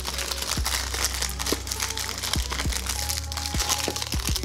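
Clear plastic wrapping crinkling as it is handled and pulled off a box, over background music with a deep, repeating bass beat.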